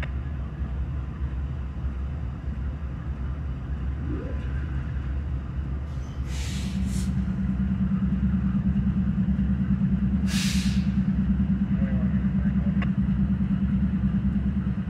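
Diesel locomotives idling in a yard with a steady low rumble. Two short hisses of released air come about six seconds in and another around ten seconds. A louder steady drone joins about six and a half seconds in and holds.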